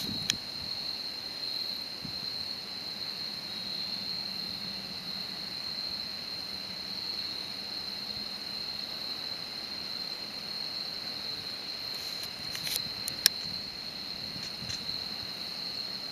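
Steady, high-pitched chirring of insects, one even tone. A few sharp clicks come about twelve to fifteen seconds in.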